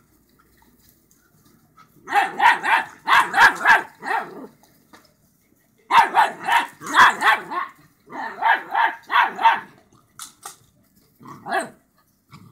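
Dogs barking during rough play. After a quiet start, three runs of quick barks come about two seconds in, at six and at eight seconds, and a couple of single barks follow near the end.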